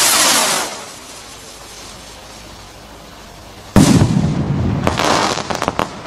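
Firework rockets: a loud hiss fades out within the first second, then a sudden loud bang about four seconds in, followed by a couple of seconds of rapid crackling pops.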